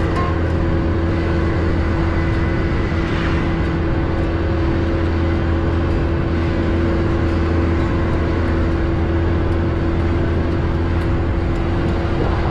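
Vehicle engine running at a steady speed with a constant low hum, along with tyre and wind noise, heard from aboard the moving vehicle.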